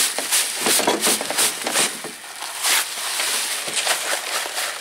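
Dry bagged concrete mix pouring out of a paper sack into a mixing tub, the sack rustling as it is shaken empty, in a string of rushing bursts.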